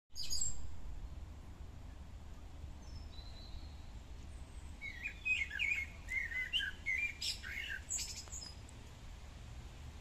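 Common starling singing: a thin high whistle about three seconds in, then a burst of varied squeaky chirps, clicks and warbled notes from about five to eight seconds. A low steady rumble of background noise lies underneath.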